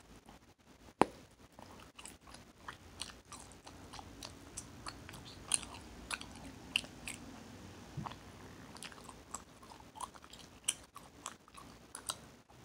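Mouth chewing Hubba Bubba bubble gum with wet smacking: irregular small clicks and pops throughout, with one sharper snap about a second in.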